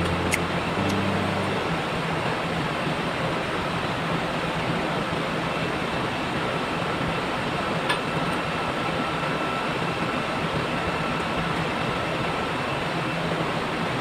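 Steady machinery noise of a ship's engine room: a constant rush with a low hum and a faint thin whine, and a single sharp click about eight seconds in.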